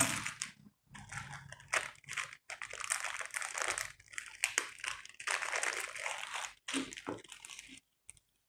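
Plastic accessory bags crinkling as they are handled, in irregular bursts that stop shortly before the end.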